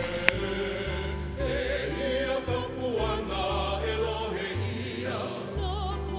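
Background music: a singing voice with wide vibrato over held low bass notes.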